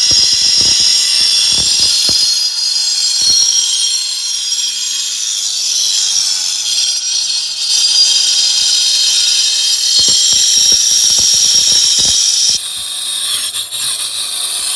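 Angle grinder cutting into a cast iron sewer pipe: a loud, steady high-pitched grinding whine with scattered knocks. The tone shifts and drops about three-quarters of the way through.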